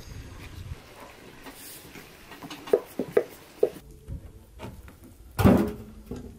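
Light clinks and knocks of tea things being handled, three short ones around three seconds in, then a louder clunk near the end as a glass teapot is handled on the metal top of a wood stove.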